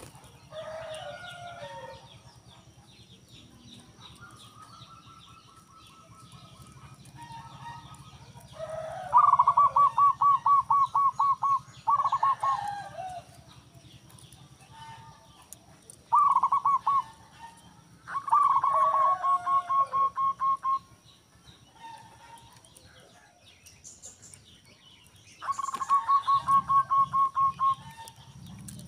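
Zebra dove (perkutut) singing: several phrases, each opening with a swooping coo that runs into a quick, even string of short cooing notes, with pauses of a few seconds between phrases.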